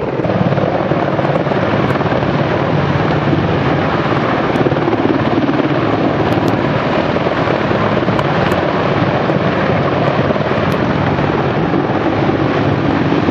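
Mil Mi-26 twin-turboshaft heavy-lift helicopter close by, lifting off with a loaded cargo net slung underneath: loud, steady rotor and turbine noise.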